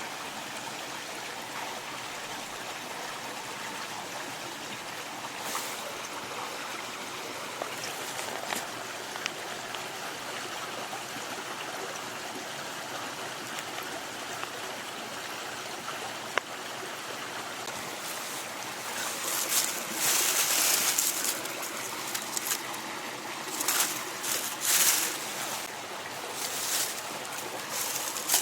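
Mountain stream flowing with a steady rush of water. Several louder, brief noises come over it in the last third.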